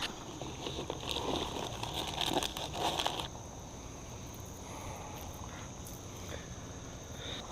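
Crickets trilling in a steady, high, even tone. Over the first three seconds there is an irregular crackling rustle of brush and footsteps, which then stops.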